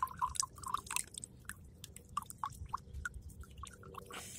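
Corn liquid draining from a hole punched in the lid of a steel can of corn and dripping into a smaller can, a faint, uneven run of small plinks and drips.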